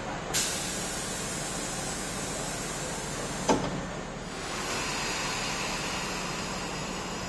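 Stationary Tobu limited express train at a platform: a sudden hiss of released compressed air lasting about three seconds, ending in a single sharp knock, then a steady hum of the train's equipment.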